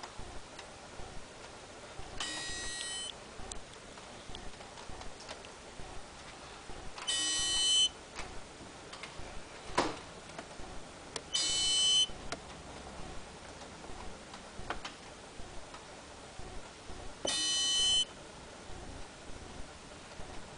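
Something in the engine of a BMW E60 545i buzzing in short bursts about a second long, four times at irregular gaps of a few seconds, with faint ticks in between, while the engine is switched off. This noise goes on for hours after shut-off.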